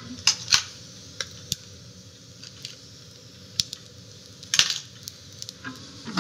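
Sharp metallic clicks and clinks from an Osburn wood stove's glass door and handle being worked, with a louder cluster about four and a half seconds in as the door is swung shut. A low steady background runs underneath.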